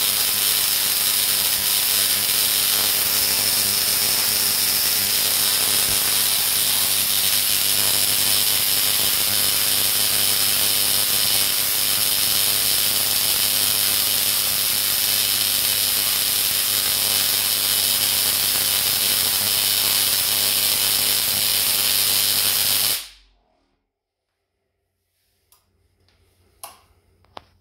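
350 W spark-gap Tesla coil running, sparks arcing off its toroid with a loud, steady buzz. It shuts off sharply about 23 seconds in, leaving near silence with a few faint clicks.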